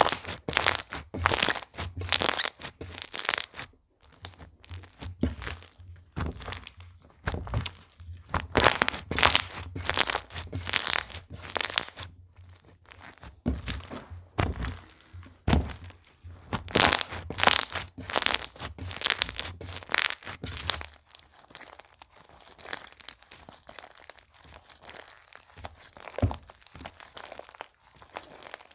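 Hands squeezing, pressing and stretching slime, giving rapid runs of crackling, crunchy pops. About 21 seconds in the crackling grows softer and sparser.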